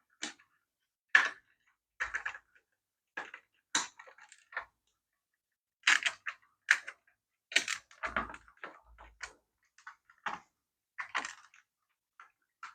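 Irregular clicks, taps and rattles of small plastic parts of a toy RC car being handled and taken apart, about a dozen short separate sounds with brief gaps between them.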